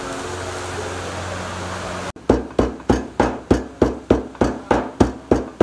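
A steady hum, then about two seconds in a run of evenly spaced heavy chopping strikes, about three a second, like a cleaver chopping on a wooden block.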